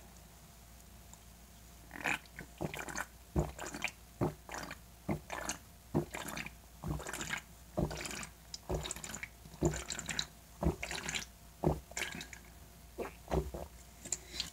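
A person gulping a drink straight from an aluminium can, head tipped back, swallowing in a steady run of gulps about a half second apart. The gulping starts about two seconds in and goes on until just before the end.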